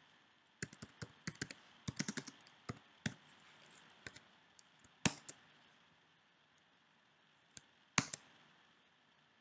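Computer keyboard typing: a quick run of keystrokes in the first three seconds, then a few single, sharper key presses, the loudest about five and eight seconds in.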